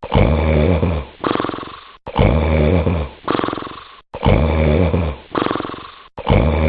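Loud, regular snoring, about one breath every two seconds: each a long, low buzzing snore followed by a shorter rattling one, then a brief pause.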